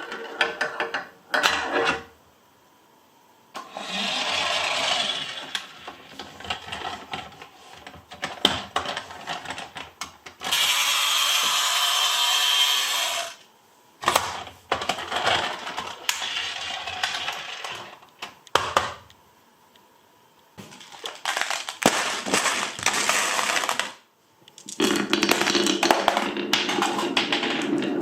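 Glass marbles rolling down marble-run tracks, clicking and clattering against the track pieces and each other, in bursts separated by short quiet gaps. About ten seconds in there is a steady rolling rush lasting about three seconds.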